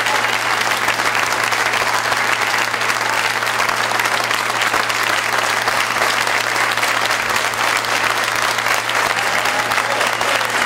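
Large audience applauding: a dense, steady clatter of many hands clapping.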